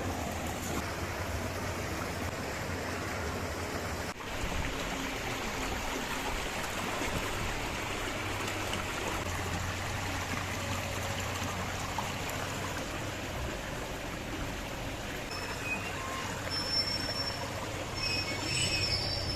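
Stream water flowing, a steady rushing that dips briefly about four seconds in.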